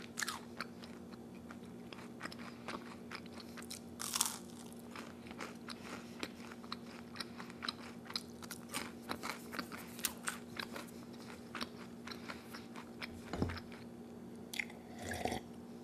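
A person chewing a chocolate-dipped churro: crunchy bites and wet mouth clicks, with one louder crunch about four seconds in. Near the end come gulps of milk. A faint steady hum sits underneath.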